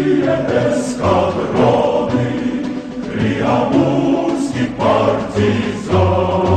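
Choral music: a choir singing sustained chords over instrumental accompaniment, with a bass line moving from note to note underneath.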